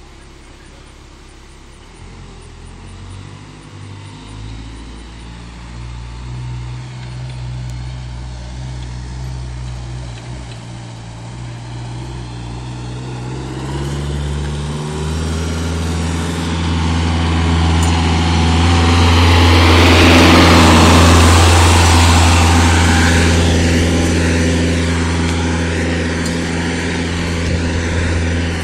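Truck-mounted forklift's engine running as it drives closer, its pitch stepping up and the sound growing louder until it passes close by about two-thirds of the way in, then easing off a little.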